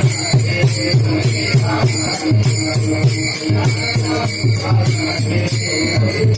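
Kirtan accompaniment without voice: a low hand drum beats evenly at about three strokes a second, with small metal hand cymbals (taal) clashing in rhythm over a held drone.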